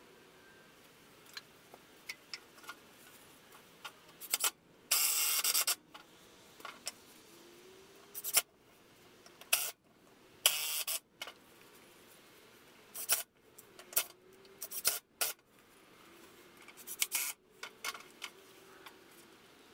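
Wooden boards being handled, with scattered knocks and clacks of wood on wood, and two bursts of about a second each from a cordless drill driving into the wood, about five and ten seconds in.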